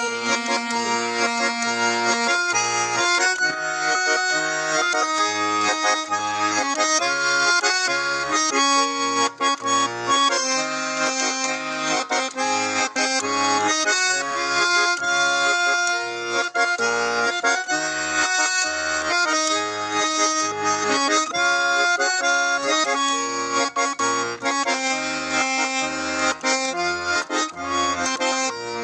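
Russian garmon (button accordion) playing an instrumental passage of a folk song: a melody in the right hand over a steady, evenly pulsing bass-and-chord accompaniment.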